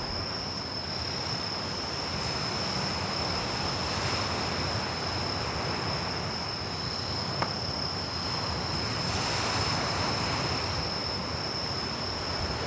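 Sea waves washing on the shore in a steady hiss that swells and eases slowly, with an insect trilling in one steady high note over it. A faint click about seven seconds in.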